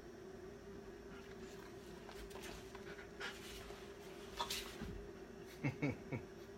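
A dog shifting about with scratchy rustling, then a few short whimpers near the end, over a steady low hum.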